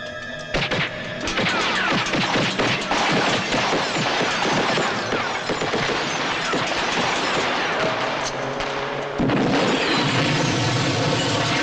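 Action-film sound mix of rapid, dense gunfire and crashing impacts over music, breaking in suddenly about half a second in and surging louder again a little after nine seconds.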